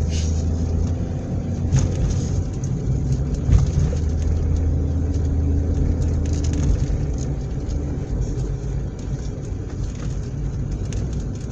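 Car on the move: a steady low rumble of engine and road noise, with a couple of light knocks.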